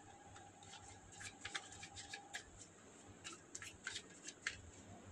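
Tarot cards handled in the hands: faint scattered clicks and rustles of card edges rubbing as cards are slid through the deck.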